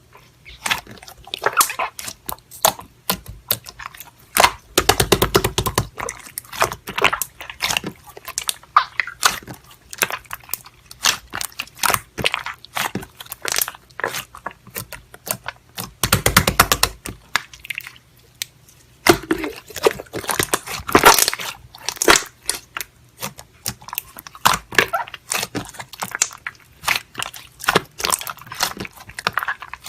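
Close-up chewing with crunching and irregular clicks.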